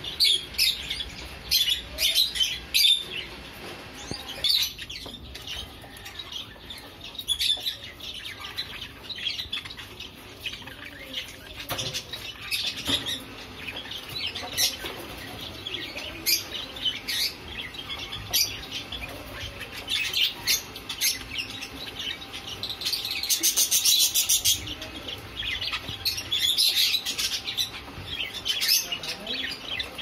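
Caged pet parakeets, including budgerigars, chirping and chattering in many short high calls, with a louder, denser burst of noise about three-quarters of the way through.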